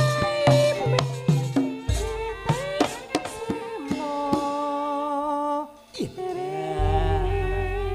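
Javanese gamelan music with a sinden (female singer) holding long, wavering notes over the ensemble. It opens with about two seconds of quick drum and percussion strokes, and deep gong strokes come in about two seconds in and again near the end.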